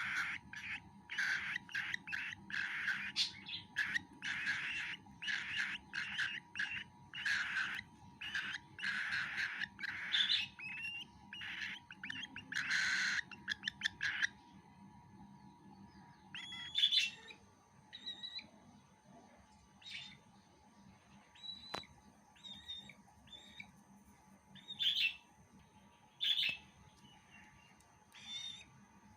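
Baby cockatiel's food-begging calls while it feeds: a rapid run of calls, several a second, for about the first half, then breaking off into single chirps every second or two.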